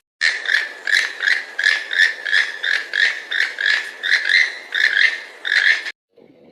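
An animal calling in a fast, even series of short high-pitched calls, about three a second, starting and stopping abruptly.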